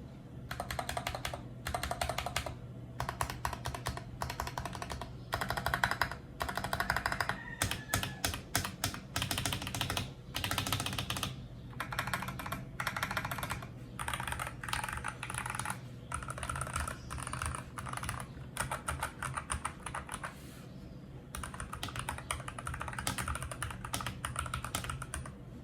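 FL-Esports CMMK MK870 mechanical keyboard with Gateron Cap Golden Yellow linear switches and PBT keycaps, pressed in clusters of keystrokes. First come the stabilized modifier keys, then rapid spamming of the QWERTY keys, and after a short pause near the end, a quick burst of ordinary typing, all over a low background hum.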